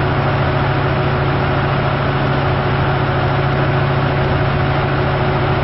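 An engine running steadily at an even speed, with a low drone and a faint constant whine above it.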